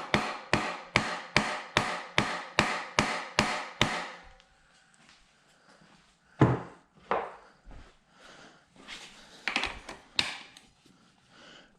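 Hammer blows driving a 3/8-inch socket onto a rounded-off 10 mm bolt head, an even run of sharp strikes about three to four a second for the first four seconds. After that come a few scattered knocks and clanks, the loudest about six and a half seconds in.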